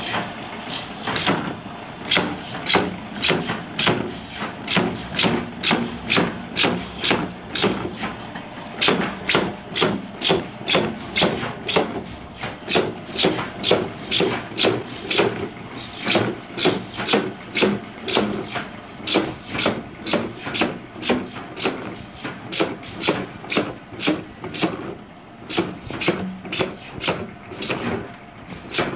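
A drilling machine boring holes into PVC pipe over and over, one scraping cut about every half second, over the steady hum of its motor.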